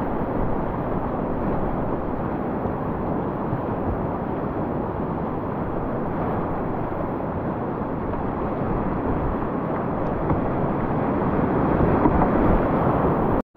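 Steady rushing noise of whitewater rapids, mixed with wind buffeting the microphone; it drops out for an instant near the end.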